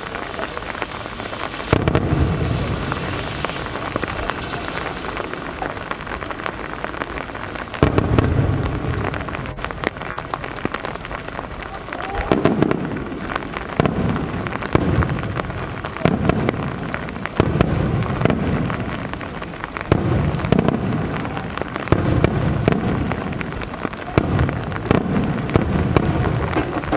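Aerial firework shells bursting with deep booms that echo and die away, two widely spaced at first and then about a dozen in quicker succession, over the steady hiss of falling rain.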